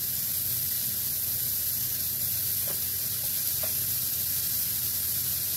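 Shaved beef sizzling steadily as it sears in a very hot frying pan alongside stir-fry vegetables. Two faint clicks come in the middle.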